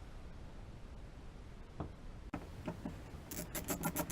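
Ratcheting screwdriver backing out a long outlet mounting screw: a couple of faint ticks, then from about three seconds in the ratchet's fast, even clicking, about six clicks a second.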